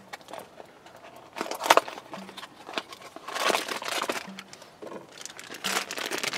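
Packaging crinkling and rustling as it is handled, in several bursts, the loudest about one and a half and three and a half seconds in.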